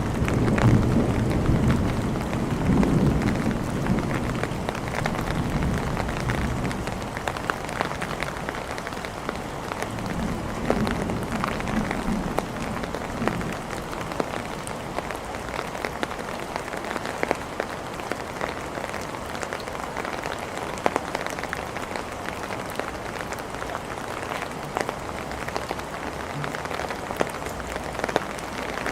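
Steady rain falling on hard surfaces, with many small drop hits, and a low roll of thunder in the first few seconds that slowly dies away.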